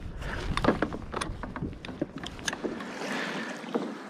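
Wind buffeting the microphone over a string of small clicks and knocks from fishing tackle being handled on a kayak. About three seconds in, the low wind rumble cuts off, leaving a hiss of water and a few more clicks.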